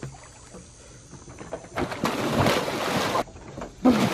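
Pool water splashing as a person steps onto a floating cardboard-and-duct-tape bridge and it sinks under his feet. There is a stretch of splashing about two seconds in and a louder, sudden splash near the end.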